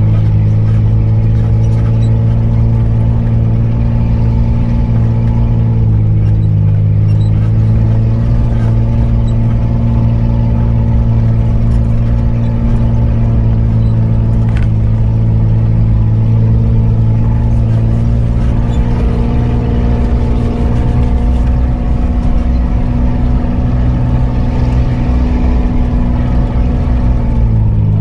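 Mitsubishi Pajero V6 engine running steadily at low speed as the 4x4 crawls along a dirt track, its note holding nearly level and dipping slightly in pitch near the end.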